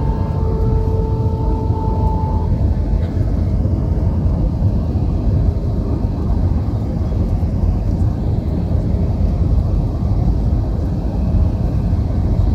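Airbus A320-214 cabin noise heard from a window seat on approach: the steady roar of the CFM56 engines and airflow, heavy in low rumble. A steady whine runs under it and stops about two seconds in.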